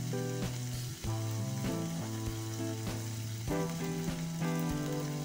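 Papaya flowers sizzling as they are stir-fried in a wok, with a metal spatula stirring and scraping through them. Background music with held notes plays alongside.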